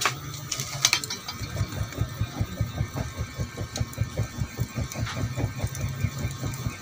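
Hand fan waved rapidly at a wood fire in a stove, each stroke a low, muffled whoosh of air at about four strokes a second, starting about a second in. Two light knocks come just before the fanning starts.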